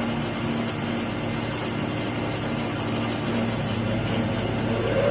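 Bamboo slicing and strip-splitting machine for satay skewers running steadily, a constant motor hum under an even mechanical noise.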